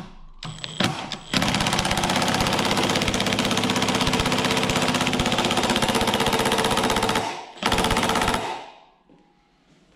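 Cordless impact driver hammering rapidly as it drives an M12 screw down through a small dimple die, forcing the die into a steel plate to form a dimple. It runs for about six seconds, pauses briefly, gives a short second burst, then stops.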